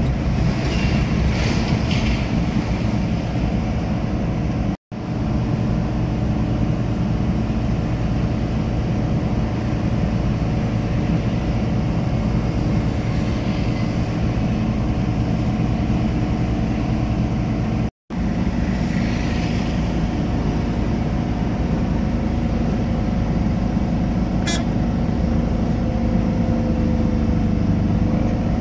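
Car engine and tyre noise heard from inside the cabin while driving at a steady speed, broken by two very short gaps of silence.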